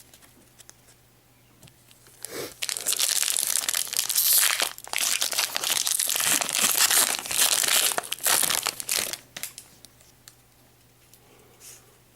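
Foil Pokémon booster pack wrapper crinkling and tearing as it is ripped open and handled. The crinkling starts about two seconds in, runs thickly for about seven seconds and stops near the end.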